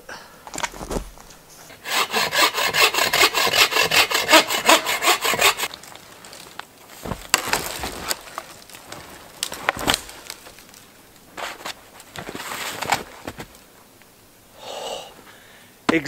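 Hand saw cutting into a fallen dead hardwood log: a quick, even run of strokes for about four seconds, then slower, scattered strokes. The wood is dry.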